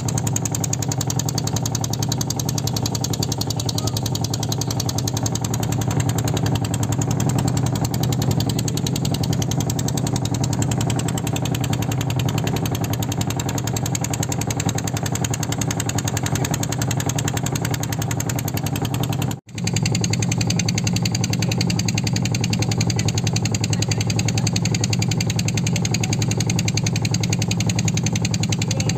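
Small boat's motor running steadily under way, with a low hum and a rapid, even pulse. It breaks off for an instant about two-thirds of the way through, then carries on as before.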